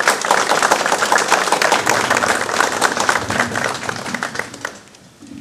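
An audience applauding with dense clapping that dies away near the end.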